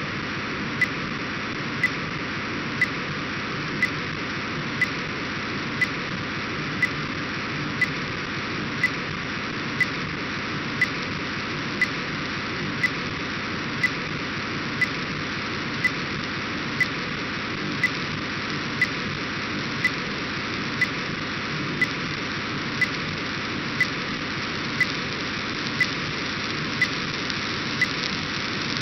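Demodulated audio from an RTL-SDR receiver tuned to an Orbcomm satellite downlink near 137.7 MHz: a steady data hiss, with a short click about once a second. The signal is being decoded into packets, so the hiss carries the satellite's data.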